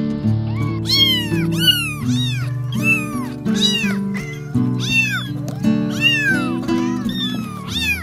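Cat meowing over and over, about a dozen short meows each rising then falling in pitch, over background music.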